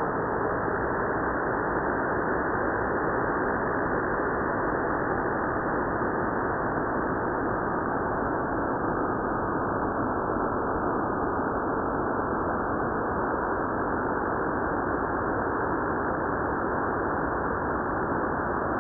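Electro-acoustic music: a steady, dense, muffled wash of electronic noise with nothing heard above the middle of the range, holding an even level with no distinct notes or beats.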